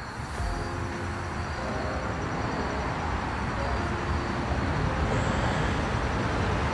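A steady motor-vehicle rumble with a rushing noise over it, growing slowly louder.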